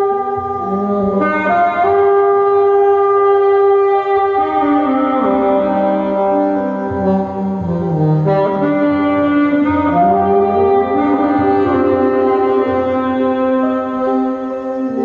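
Saxophones playing a melody in long held notes, with a lower accompaniment underneath.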